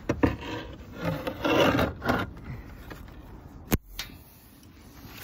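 Four rough scraping strokes in quick succession, hard surfaces rubbing against each other, then one sharp knock about three and a half seconds in.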